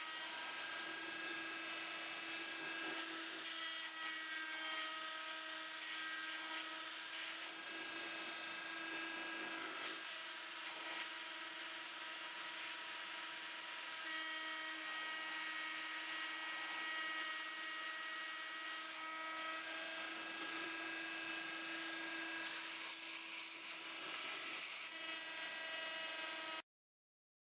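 A rotary tool serving as the spindle of a small CNC router whines steadily as it mills, over the rushing hiss of a vacuum hose held at the cut. The pitch steps a little up or down a few times, and the sound cuts off suddenly near the end.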